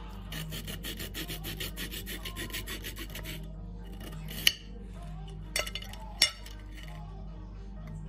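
A knife sawing back and forth through a dry tea biscuit, a quick even rasping of about four to five strokes a second that stops after about three seconds. Three sharp clicks follow, about a second apart.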